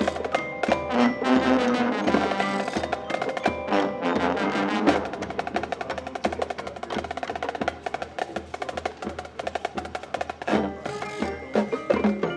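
Marching band music: sustained ensemble chords over mallet percussion, dropping about five seconds in to a passage of quick percussion strokes with pitched mallet notes, before the fuller sound returns near the end.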